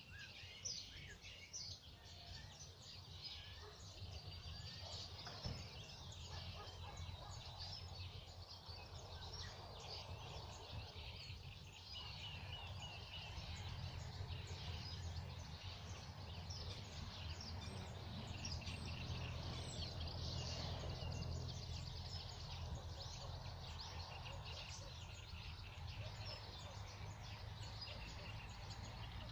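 Several songbirds singing and calling at once, a dense mix of quick chirps and trills, over a steady low rumble.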